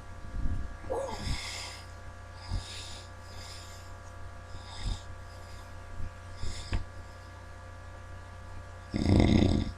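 Heavy snoring: a run of short, noisy breaths about every second or so, then a loud, deep snore near the end.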